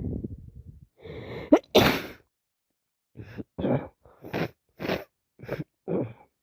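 A woman sneezes with a head cold: a rising "ah" build-up, then one loud, sharp sneeze a little under two seconds in. It is followed by about six short, quick breathy bursts, roughly two a second.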